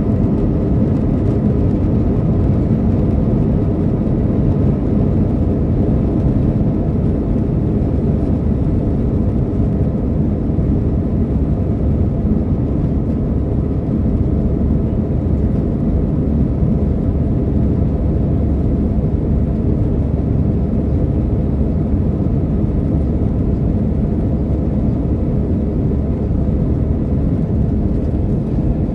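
Jet airliner cabin noise during the climb after takeoff: the engines and rushing air make a steady, low-pitched drone, with a few faint steady tones above it.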